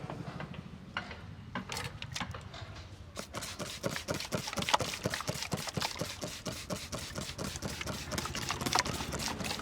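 Hands striking in quick rhythm during a barber's percussive head massage: a few scattered taps, then from about three seconds in a steady run of short slaps, about five a second.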